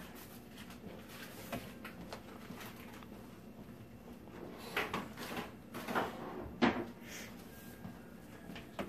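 Wooden spoon stirring a stiff, powdery mixture in a plastic mixing bowl: irregular knocks and scrapes against the bowl. They come thicker in the second half, with the sharpest knock about two-thirds of the way through.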